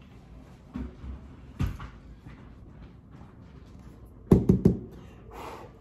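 Kitchen handling noises: a couple of soft thumps, then three quick sharp knocks about four seconds in, as things are set down or knocked against the counter, followed by a brief rustle.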